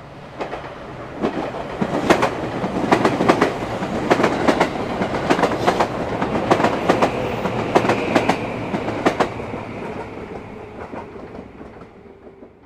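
Plastic toy train running on its plastic track, clattering with many irregular clicks and rattles; it fades out near the end.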